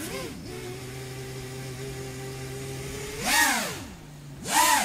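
A 5-inch FPV racing quadcopter's brushless motors and tri-blade propellers, on 3D-printed folding hubs, heard from a camera mounted on the drone. They hum at a steady pitch for about three seconds, then twice rise sharply and fall back as the throttle is punched.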